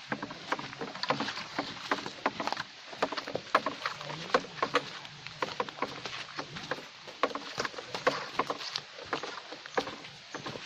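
Footsteps crunching and snapping through dry leaf litter and twigs on a forest trail: a busy run of irregular crackles with no steady rhythm.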